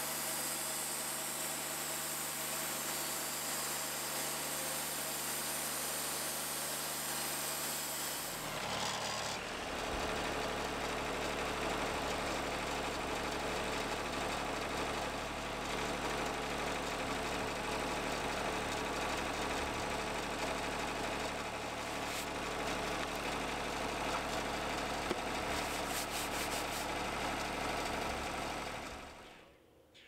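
Wood-Mizer portable band sawmill running and sawing through a log, a steady mechanical drone with a hiss. About a third of the way in, the sound turns rougher and deeper. Near the end it fades away.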